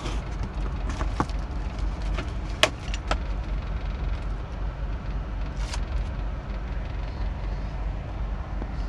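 Car engine idling and the air-conditioning blower running steadily. A few sharp clicks and rustles from cardboard being handled, the loudest about two and a half seconds in.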